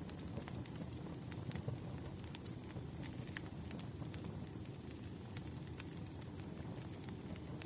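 Wood fire burning: a steady low rumble with sharp, irregular crackles and pops from the logs.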